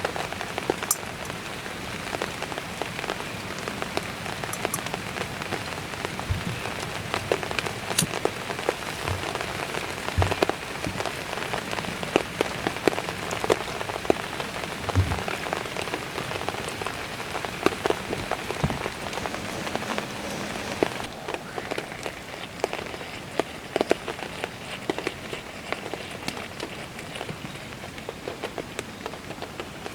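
Steady rain falling, a dense even hiss scattered with many separate close drop hits. The rain eases slightly about two-thirds of the way through.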